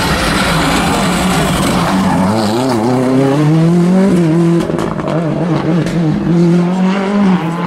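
Rally car at stage pace passing close by. Its engine revs rise and fall as it takes the corner, then run high as it pulls away, dropping briefly near the end.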